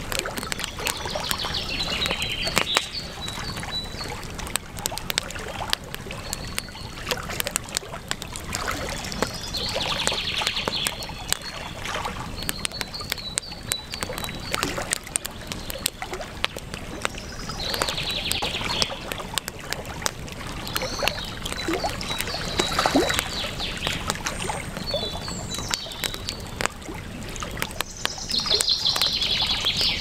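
Campfire crackling with frequent sharp pops over the steady rush of river water. A bird sings a short high phrase four times, about every eight to nine seconds, with thinner chirps in between.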